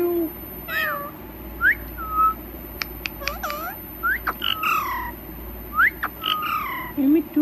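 A pet parrot whistling and calling: a run of short rising and falling whistles and chirps, with a couple of sharp clicks about three seconds in.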